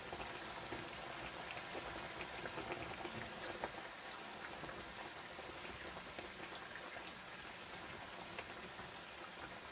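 Brown gravy bubbling around smothered steaks in a skillet, with beef liver frying in oil in the pan beside it. A silicone spatula stirs through the gravy, over a steady run of small pops and ticks.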